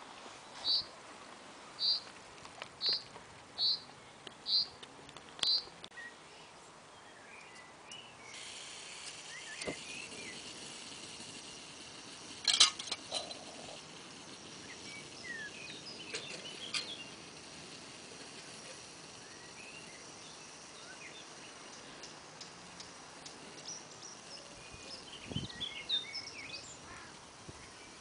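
A bird calling a short high note about once a second for the first five seconds, then scattered chirps over a steady outdoor hiss, with one sharp clink about halfway through.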